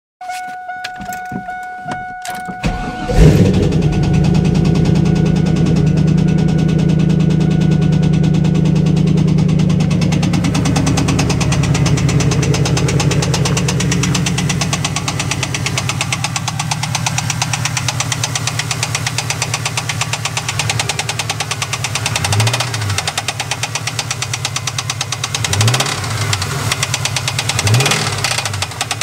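1998 Pontiac Trans Am's LS1 5.7-litre V8 cranking and catching about three seconds in. It runs at a fast idle that settles lower around halfway, with a steady rhythmic knock, and is briefly revved three times near the end. The owner takes the knock for most likely a worn rod bearing, though he is not sure.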